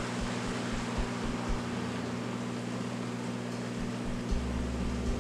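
Steady hissing noise with a low hum under it, a fan-like kitchen background noise.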